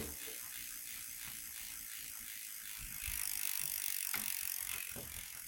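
Electric bike hub motor wheel spinning freely with a steady ratchet-like clicking, its power just cut. About three seconds in a hiss rises, with a couple of soft knocks near the end.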